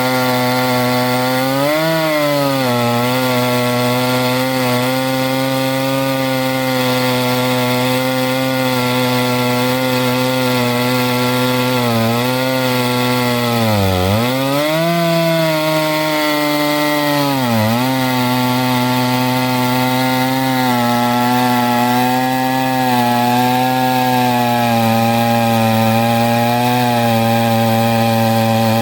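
Two-stroke chainsaw running at high revs in an Alaskan chainsaw mill, ripping a log lengthwise into a plank. Its pitch sags a few times as the engine bogs under the load of the cut, most deeply about halfway through, and climbs back each time.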